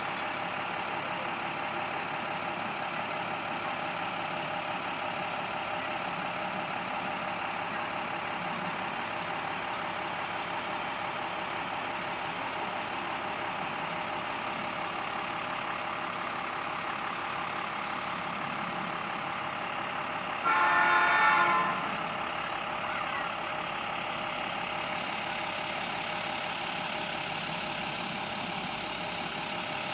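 Railroad crossing bell ringing steadily at a gated level crossing. About two-thirds of the way through, a locomotive horn gives one short blast of about a second and a half, the loudest sound.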